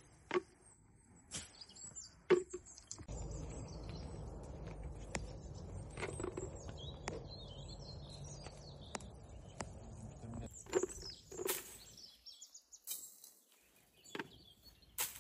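Birds chirping in an olive grove, with scattered light knocks and clicks. A steady low rumble comes in about three seconds in and drops away after about eight seconds.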